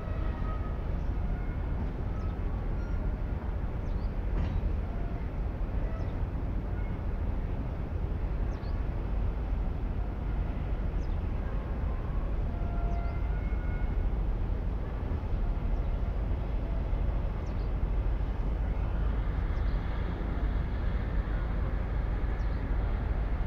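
Steady low rumble throughout, with short faint high chirps scattered over it.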